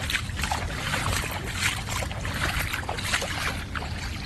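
Feet wading through shallow floodwater: irregular sloshing splashes, a few a second, over a low steady rumble.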